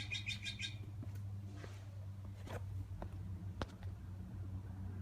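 A small bird singing a fast trill of repeated high notes that stops under a second in, followed by a few scattered faint clicks and chirps over a steady low hum.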